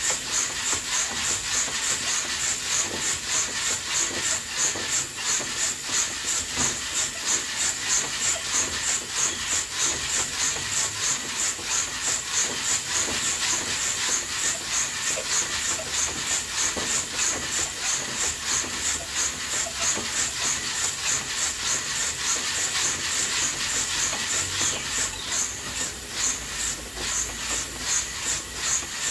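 Coffee beans tumbling and hissing inside an old-fashioned hand-cranked roaster over a wood-fired stove. The drum turns in a steady rhythm of about two to three pulses a second.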